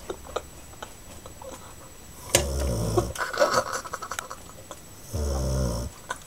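A sleeping pet snoring: two low snores a little under three seconds apart, each under a second long, the first followed by a short, higher-pitched noise.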